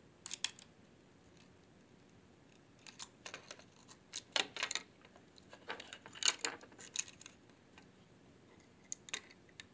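Small sharp clicks and taps of metal parts as a 2.5-inch laptop hard drive is taken apart by hand and screwdriver, coming in irregular clusters.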